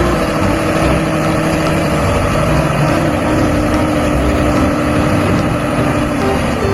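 Recorded truck engine idling, played from a toy dump truck's built-in sound module. It runs steady and unchanging at an even level.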